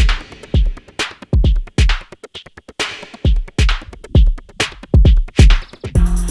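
Electronic background music with a steady drum-machine beat of deep kick drums and ticking hi-hats, moving into a section of held synthesizer notes near the end.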